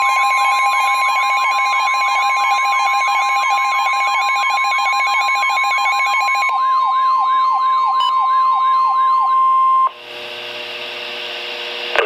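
Midland weather radio sounding a warning alert: a fast repeating siren-like warble over a steady, loud long tone. The warble slows about six seconds in, and both stop about ten seconds in, leaving a couple of seconds of radio hiss before the broadcast message.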